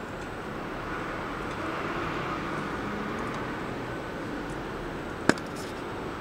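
Steady background hiss, with one sharp click about five seconds in from the multimeter test probes being handled.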